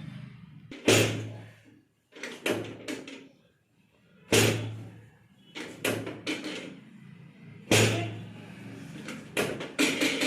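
A dozen or so sharp thumps in irregular groups, some single and some in quick runs of two or three, over a faint steady low hum.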